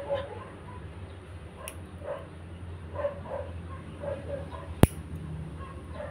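A dog barking repeatedly in short barks over a low steady hum. Just before five seconds in, one sharp click as steel nail nippers snip a fingernail, with a fainter click earlier.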